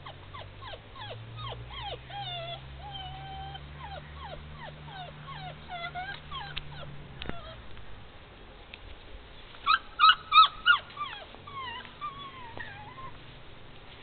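Puppy whining: a string of short, falling whimpers, with four loud, sharp, high-pitched yips close together about ten seconds in, then more wavering whines.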